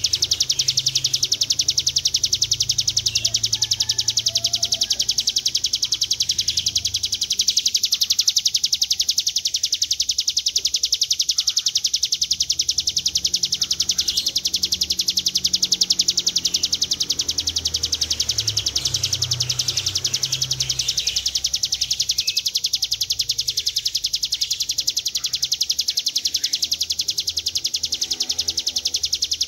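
A ciblek gunung prinia singing a long, rapid, high trill that does not break: the buzzing 'ngebren panjang' song.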